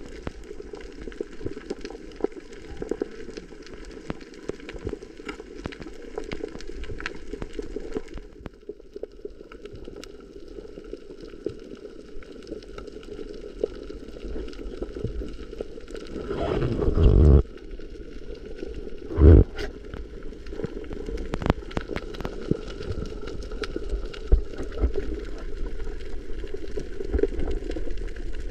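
Underwater ambience recorded on a coral reef: a steady low rush of water with constant faint crackling clicks. Two louder gurgling bursts of bubbles come a little past halfway, about two seconds apart.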